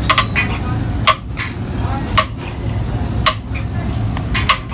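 Metal utensil striking metal cookware: sharp ringing clinks about once a second, a few close together near the end, over a steady low street rumble.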